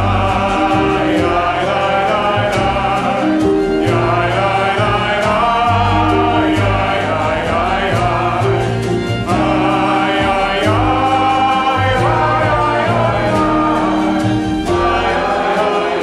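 Congregation and cantor singing a Hebrew prayer together, accompanied by a small jazz band: plucked upright bass notes underneath and a steady ticking beat from percussion.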